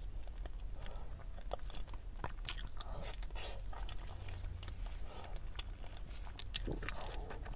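Close-up eating sounds: biting into and chewing a chocolate-coated dessert, with many small crackles from the thin chocolate shell and the plastic wrapper it is held in.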